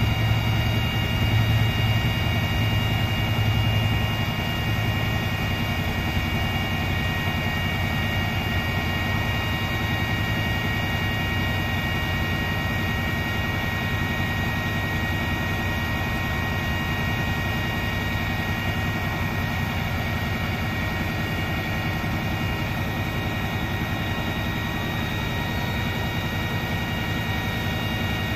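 Paccar MX-13 12.9-litre six-cylinder diesel truck engine running steadily, with a steady high whine over its rumble; it is a little louder in the first few seconds.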